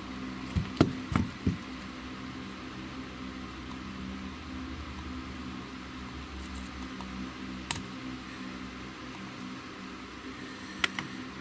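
A few light knocks and clicks from a printed circuit board being handled and turned over, bunched near the start with single clicks later, over a steady low hum.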